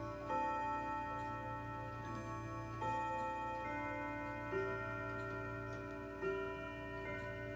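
Ridgeway grandfather clock chiming: about four struck notes of different pitches, spaced a second and a half to two and a half seconds apart, each ringing on under the next, with the clock ticking.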